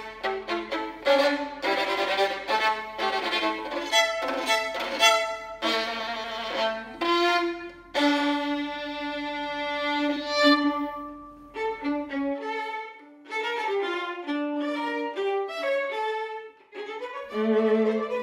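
Solo violin playing fast runs of notes, then settling on a long held note about eight seconds in before picking up again. Near the end other string players join in with lower notes.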